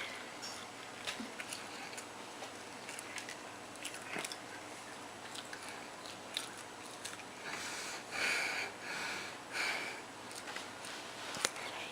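A person chewing chicken nuggets close to the microphone, with small wet mouth clicks and three short hissy breaths or sniffs about two-thirds of the way through.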